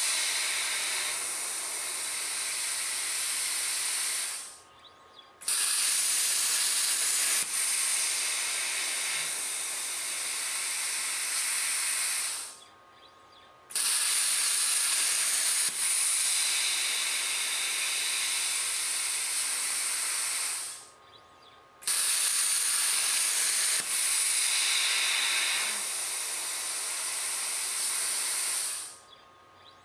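Cut50 pilot-arc plasma cutter's P80 torch hissing steadily as it cuts 2.5 mm aluminium sheet. The arc shuts off abruptly about every eight seconds, four times in all, and each time fires again suddenly about a second later.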